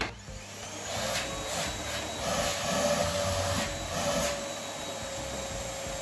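Canister vacuum cleaner switched on with a foot press, its motor spinning up with a rising whine. The suction noise swells and wavers between about one and four seconds in while the hose is handled, then settles into a steady drone.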